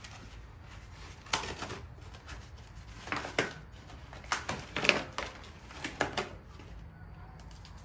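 Scissors snipping through the plastic ties and foam wrap packing an electric bike: a handful of sharp snips and crackles in short groups a second or two apart.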